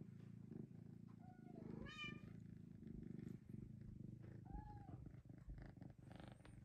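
Snow mink Bengal cat purring steadily and quietly while being stroked, with a few short high chirps over the purr.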